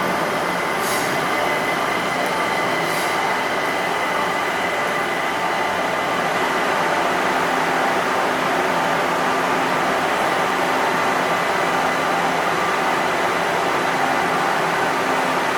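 Kaohsiung Metro Orange Line Siemens train giving off a steady hum with several held tones, and two short hisses of air about one and three seconds in.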